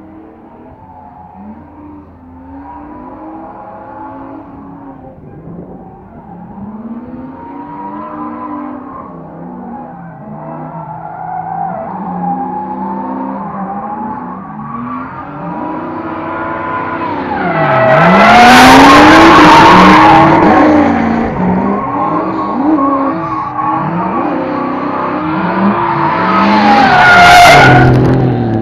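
Drift cars approaching and sliding past, the engines revving up and down over and over as the throttle is worked, growing louder throughout. Loud tyre screech comes as a car passes close about two-thirds of the way through, and again near the end as a Toyota AE86 Corolla hatchback slides by.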